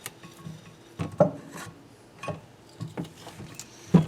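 Metal tools and small valve-train parts clinking and knocking while valves, springs and keepers go back into a cylinder head. The clicks come irregularly, several in a few seconds, with a louder knock about a second in and another at the end.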